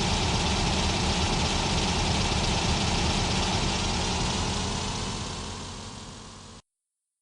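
Bus engine sound effect, running steadily and then fading away as the bus drives off, before cutting off abruptly about six and a half seconds in.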